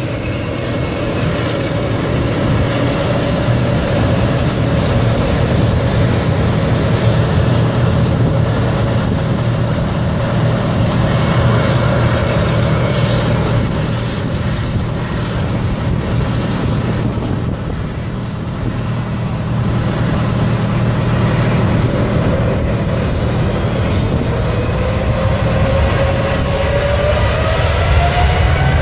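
Jet engines of an Emirates Boeing 777 running close by, a loud steady rumble with a whine that rises in pitch over the last few seconds as thrust builds.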